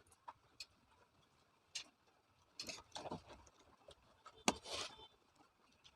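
Faint, irregular small clicks and ticks of a small screwdriver and screws being worked back into a phone's frame, with a sharper click about four and a half seconds in.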